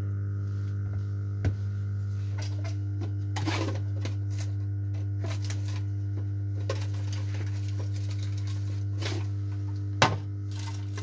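Hot air rework station running steadily with a low hum while heating a phone's glass back cover to soften its adhesive. A few light clicks and taps come over it, the sharpest about ten seconds in.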